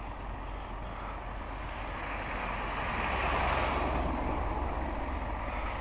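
Blizzard wind blowing across the microphone, swelling to its strongest about halfway through, over a steady low engine hum from idling trucks.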